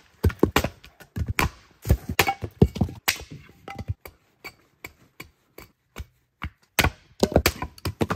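Axe splitting firewood on a stump chopping block: a quick run of sharp chops and knocks. The strikes come thick at first, thin out past the middle, then bunch up again near the end.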